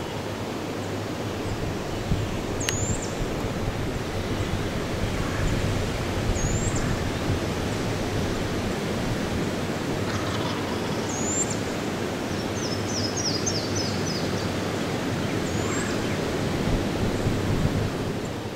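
Steady rushing outdoor noise across the woods, with a small bird's short, high rising chirps repeated every few seconds and a quick trill of high notes about midway.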